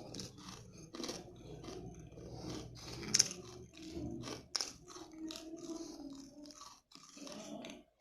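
Close-miked chewing of crunchy peanut candy (kadalai mittai, peanut brittle): a fast, irregular run of crisp crunches, with one sharp, louder crack about three seconds in.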